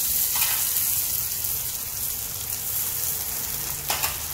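Chopped tomatoes sizzling in hot mustard oil with browned onions in a steel kadai. A brief louder flare of sizzle comes about half a second in and again near the end, as the chopped green chillies go in.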